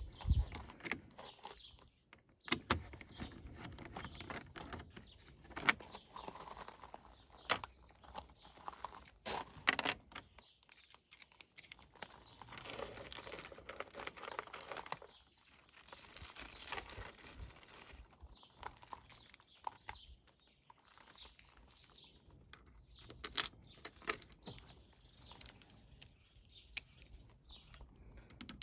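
Hand screwdriver backing a bolt out of a plastic engine-bay bracket, then small metal bolts and washers clinking and scraping as a new bolt with its washer is handled and set in the hole. Irregular clicks and rustles throughout.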